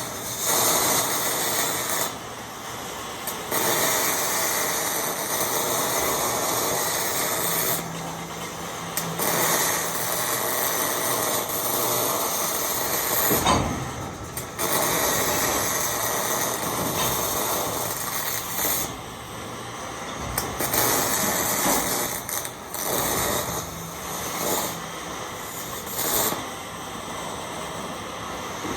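MIG welding arc crackling on hex mesh, in a series of short welds a few seconds long with brief breaks between them.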